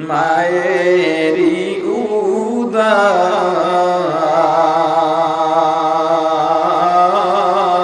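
A man singing a Bengali Islamic devotional song (gojol) solo, drawing each syllable out into long, wavering held notes. There is a short break about two and a half seconds in before he takes up the next line.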